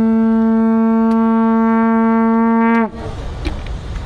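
Long, loud, steady horn blast in one pitch that sags and cuts off about three seconds in. Air horns like this are typically used to signal the end of a game.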